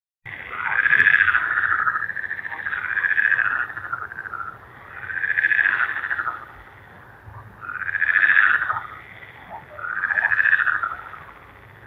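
Frog croaking: a series of pulsed calls, each about a second long, repeating every two to three seconds.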